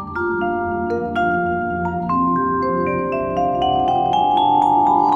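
Vibraphone struck with mallets, with live electronic processing: a steady run of notes, about three a second, each ringing on so that they pile up into a sustained chord that grows louder toward the end.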